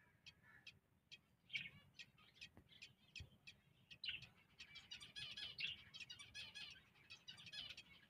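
Budgerigars chirping faintly: short high peeps a few per second, growing into denser, quicker chirping about halfway through.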